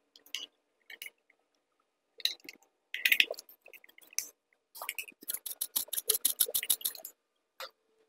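Screwdriver driving the mounting screws of a double-pole wall switch into its box. It gives a few scattered clicks, then a quick run of clicks, about seven a second, for about two seconds in the second half.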